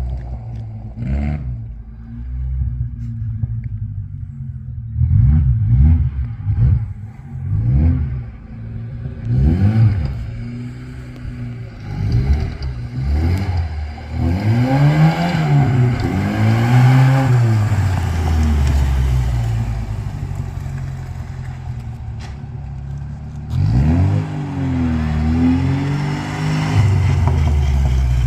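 Lada Niva's engine revving up and dropping back again and again in short swells, with a few longer, higher revs partway through, as the lifted Niva is driven off-road. Knocks and rattles sound in the first several seconds.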